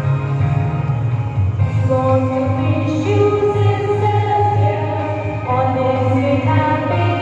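Music with singing voices: a sung piece in long held notes over a steady bass accompaniment, the voices entering about a second and a half in.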